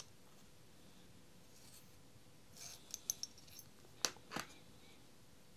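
Faint handling noise from a Forstner drill bit with a depth-stop collar being turned in the fingers: a few light ticks and rubs about three seconds in, then two sharper small clicks about four seconds in.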